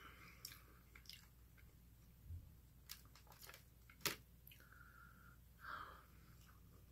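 Faint, close chewing and wet mouth clicks of someone eating sauce-dipped chicken, with one sharper click about four seconds in.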